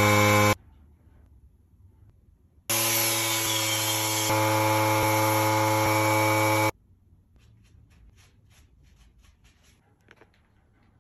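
Corded angle grinder with a sanding disc running against carved wood, in two stretches that start and stop abruptly: a brief one at the start and about four seconds from roughly three seconds in. Between and after them it is near quiet, with faint light ticks.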